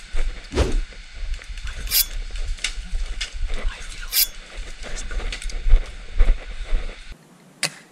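Wind rumbling on the microphone, with a scatter of sharp cracks; the two loudest come about two seconds in and about four seconds in. The rumble cuts off abruptly near the end.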